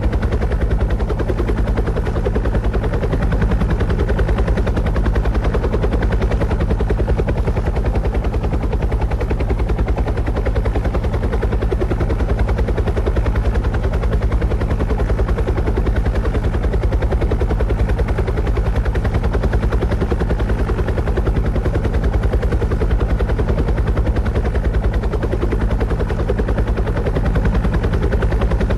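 Rotor blades chopping steadily and rapidly over a low hum, with no change in pace or loudness.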